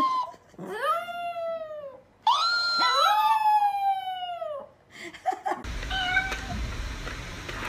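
Chihuahua howling: a few long, drawn-out howls that rise and then slowly fall in pitch, ending about five seconds in.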